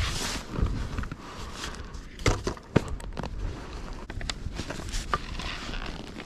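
Irregular clicks, knocks and rustling from outdoor camping and ski gear being handled, with a few sharper knocks in the middle.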